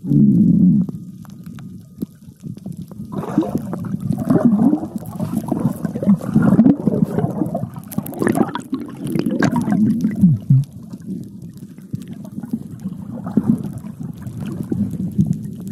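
Water sounds picked up by a camera held underwater while a swimmer moves beside it. The sound is uneven and muffled, with a short loud burst at the very start and a busier stretch from about three seconds in.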